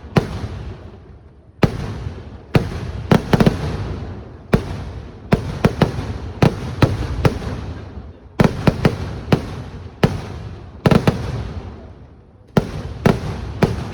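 Fireworks display: a rapid, irregular barrage of loud bangs, several often falling within a second of each other, each followed by a rolling, rumbling echo.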